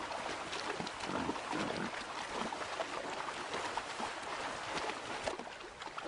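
A herd of wild boar splashing as they wade across a shallow, stony river, with many short, irregular splashes over the running water.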